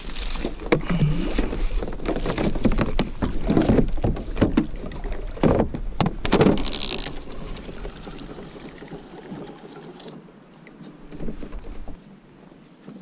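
Kayak on the sea: irregular splashes and knocks of water and gear against the hull, busiest over the first seven seconds, then quieter.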